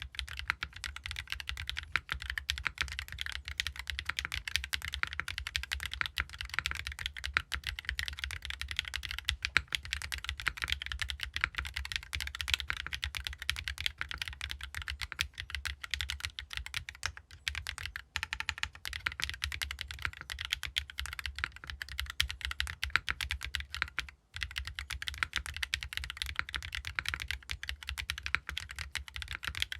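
Fast, continuous typing on a mechanical keyboard with BSUN RAW switches in an aluminium plate, O-ring mounted with no foam, under ABS double-shot keycaps, with a short pause about two-thirds of the way through.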